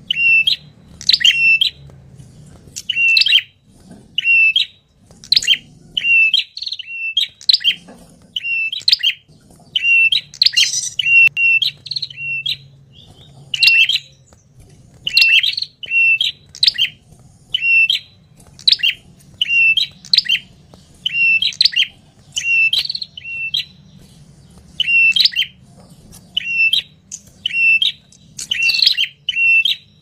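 Red-headed prenjak, a tailorbird (cinenen), calling noisily: sharp, high calls repeated over and over, about one to two a second, with a faint low hum beneath.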